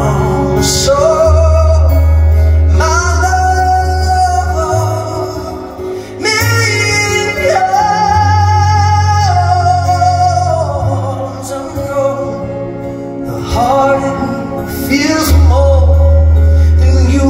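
Male vocalist singing a slow ballad live to acoustic guitar, with long held notes, over deep sustained bass notes, amplified through a concert PA and heard from the audience.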